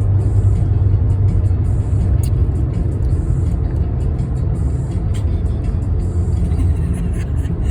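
Steady low rumble of a car's engine and tyres heard from inside the cabin while driving, with music playing over it.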